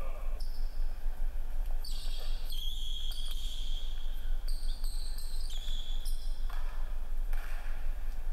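Basketball being dribbled on a hardwood gym floor, with several high-pitched rubber sneaker squeaks as players cut and change direction, over a steady low hum.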